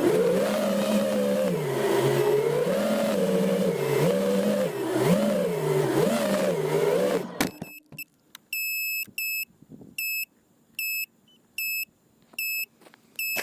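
FPV quadcopter motors whining, the pitch rising and falling with the throttle, then cutting off suddenly about seven seconds in. After that, an electronic beeper gives short, high beeps roughly once a second.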